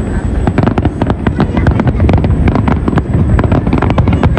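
Aerial fireworks barrage: many shells bursting in quick succession, a dense run of overlapping bangs and crackles over a continuous low rumble.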